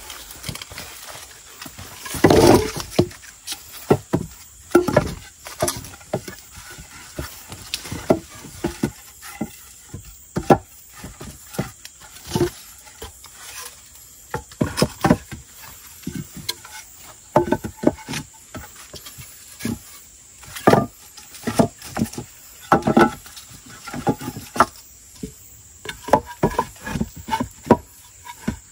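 Wooden poles and branches being handled and knocked together in irregular sharp knocks and cracks while a raised sleeping platform is built from forest wood; the loudest knock comes about two seconds in.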